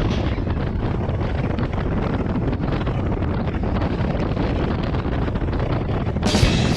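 Motorcycle on the move: wind rushing over the microphone with the engine and road noise underneath. Music comes in about six seconds in.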